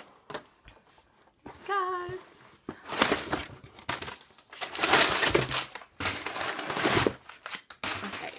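Packaging rustling and crinkling in several bursts as books are pulled out of a shipping box, with a short hummed vocal sound about two seconds in.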